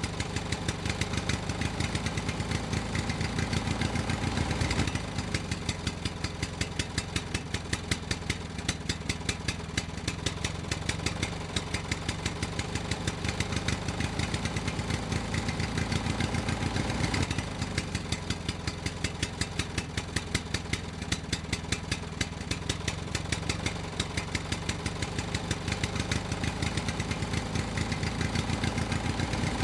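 Diesel tractor engine running steadily with an even, rapid putt-putt knock; its note shifts twice along the way.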